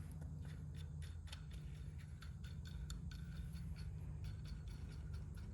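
Faint, irregular light clicks and ticks of metal as a new tie rod end is threaded by hand onto the tie rod, over a steady low hum.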